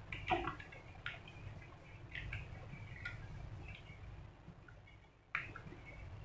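Faint scattered clicks and light handling noise as a paper picture is pressed onto a plastic bottle cap, with one sharper click about five seconds in.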